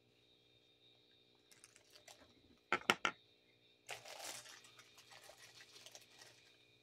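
Lip balm tubes and a plastic zip-top bag being handled: small ticks, then a couple of sharp clicks about three seconds in, followed by a soft rustle that fades.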